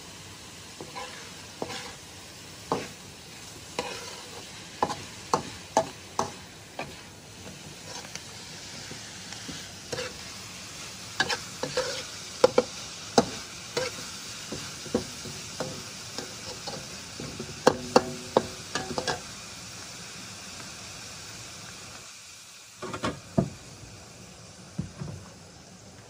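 Metal spatula scraping and clanking against a metal wok while chicken and chives stir-fry, over a steady sizzle; each strike rings briefly. The sizzle fades about 22 seconds in, and a few more clanks follow.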